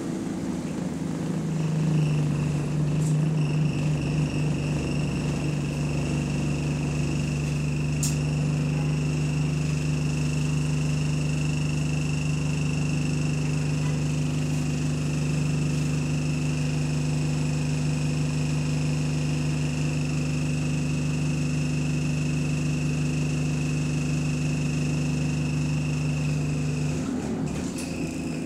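A bus's engine cooling fan running loud and steady, a constant low drone with a thin high whine over it, on a bus in limp mode. It starts about two seconds in and cuts off suddenly near the end.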